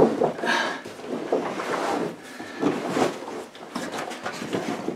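Deflated Itiwit X500 inflatable kayak being unfolded and handled: its heavy fabric hull rustles and scuffs irregularly, with a few soft knocks.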